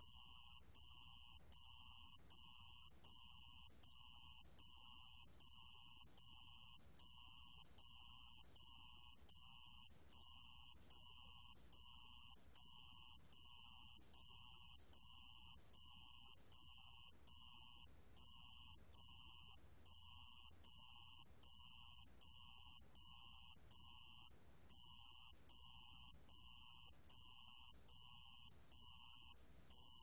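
Sand bell cricket (모래방울벌레) singing at 28 °C: a high-pitched ringing trill broken into phrases of about half a second, repeating a little under twice a second, with a few slightly longer breaks.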